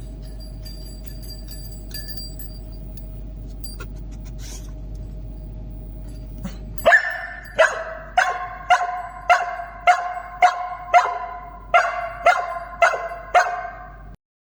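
A search-and-rescue dog barking repeatedly, about a dozen sharp barks at a steady pace of roughly two a second. They start about halfway through, over a steady indoor hum, and stop abruptly near the end.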